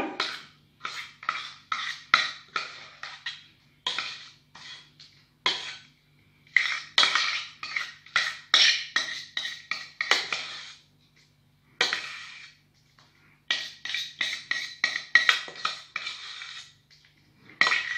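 A spatula scraping and knocking thick pastry cream out of a stainless steel pot into a bowl. The scrapes and taps come in bursts of quick strokes, broken by short pauses.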